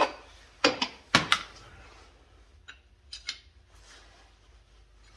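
Metal hand tools knocking and clinking as they are handled: several sharp clinks in the first second and a half, then a few lighter ones around three seconds in.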